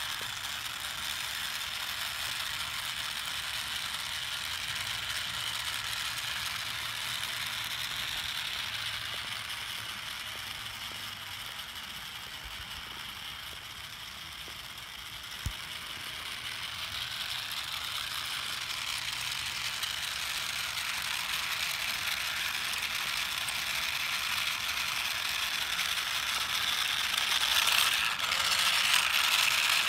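Small battery-powered toy car's electric motor and gearbox whirring steadily as it drives over asphalt on fresh batteries. It fades somewhat in the middle and grows louder near the end. There is a single sharp click about halfway through.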